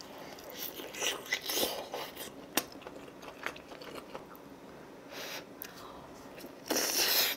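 Close-miked eating sounds: a person chewing and biting into braised kimchi stew with pork back ribs, with scattered small clicks and mouth noises and one short louder noisy burst near the end.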